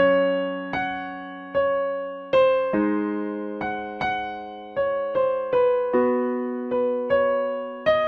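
Background music: a slow, gentle piano piece, single notes struck roughly every half second to second and left to ring and fade over held lower chords.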